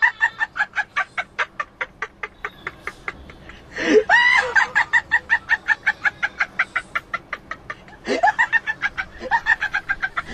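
A looped comic cackling sound effect: a rising whoop followed by a rapid run of staccato cackles, about six a second, fading away, the whole figure repeating three times about four seconds apart.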